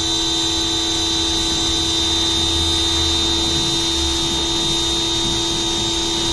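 An 1800 PSI Ryobi electric pressure washer's motor and pump run at a steady high whine under load, while water sprays from a short pressure washer gun with a 40-degree fan tip and hisses against the car.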